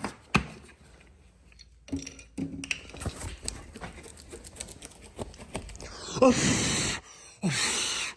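A man breathing out hard twice near the end, heavy huffing breaths with a falling pitch, after a few light knocks at the start and a quiet stretch.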